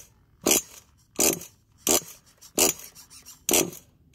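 Pull-start cord of a Losi 8 truggy's nitro engine yanked five times in quick succession, each pull a short rasping zip, with the engine not firing between pulls, which the owners suspect is a glow plug or priming problem.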